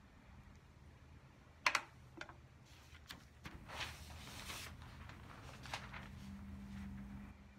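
A sharp tap about a second and a half in, then paper rustling as a sheet of calligraphy paper is lifted off a felt board, with a faint steady low hum underneath.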